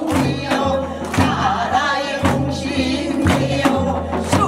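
Group of women singing a Korean folk song in unison, with steady drum beats from small hand-held sogo drums and a barrel drum about twice a second.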